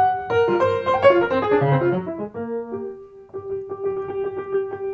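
Grand piano played solo: a dense flurry of notes, then after a short pause fast repeated strikes around a single pitch.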